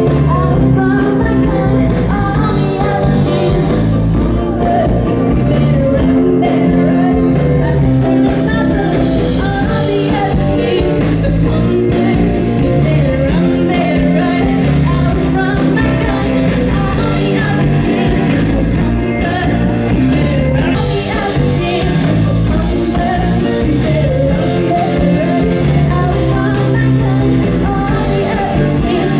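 Amplified rock band playing live: a female singer over electric bass, guitar and a steady drum beat.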